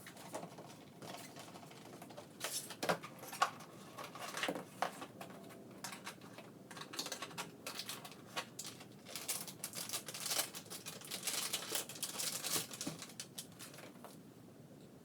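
Irregular run of small clicks, taps and rustles from handling a TP-Link AC1200 PCIe wireless Wi-Fi card during installation, busiest in the middle and latter part.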